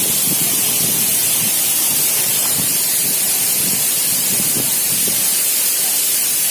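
Waterfall rushing close by: a loud, steady hiss, strongest in the high end, with faint voices underneath.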